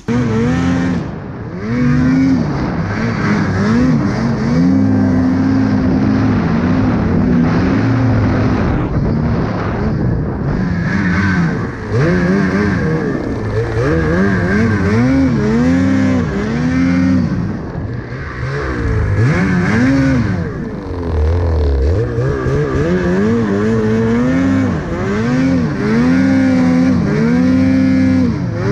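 Ski-Doo Summit 850 snowmobile's two-stroke engine being revved hard and let off again and again while it is ridden through deep powder, its pitch rising and falling every second or two.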